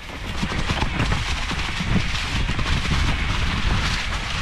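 Specialized Kenevo SL 2 electric mountain bike riding along a dirt trail: tyres rolling over the ground with steady rattling and clicking from the bike, over a low rumble of wind on the microphone.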